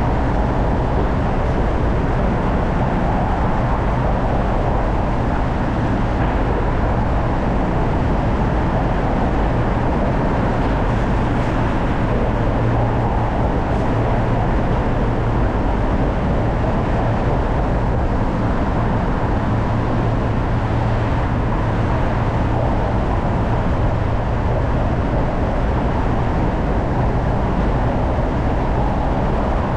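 Car driving at a steady speed: continuous road and tyre noise with a low, even engine hum.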